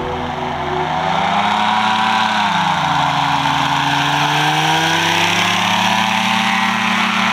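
Powered parachute's engine and propeller running, its pitch falling smoothly about two and a half seconds in and then holding steady.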